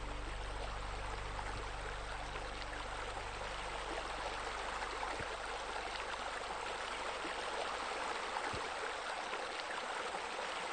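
Water spilling steadily from a fountain spillway into a pool, a constant splashing, rushing noise.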